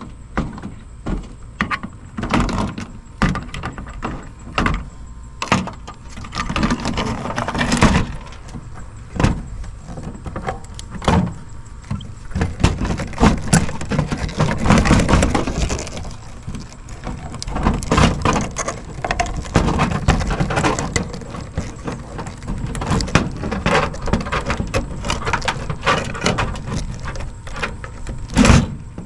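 Irregular clicks, knocks and scraping of hand tools against the metal chassis of a Kenwood cassette deck as it is pried apart, working wiring and a piece of aluminum loose.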